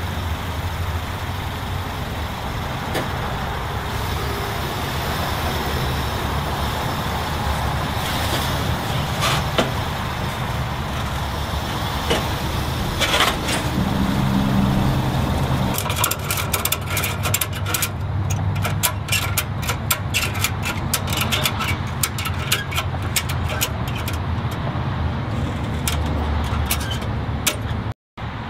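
Steady road and engine noise of a vehicle driving at highway speed, with a run of sharp ticks and knocks through the second half.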